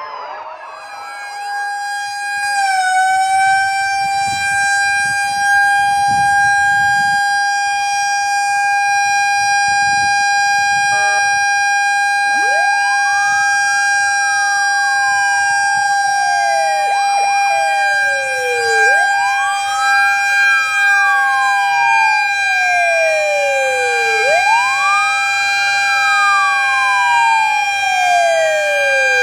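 Fire-truck sirens sounding together. One holds a steady high tone while, from about twelve seconds in, another wails in repeated cycles, each a quick rise and a slow fall, about every five seconds.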